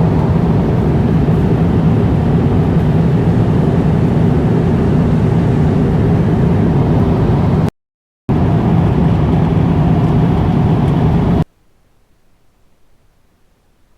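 Steady, loud drone of an airliner cabin in flight, engine and air noise, broken by a brief dropout about eight seconds in and cut off about three seconds later to quiet room tone.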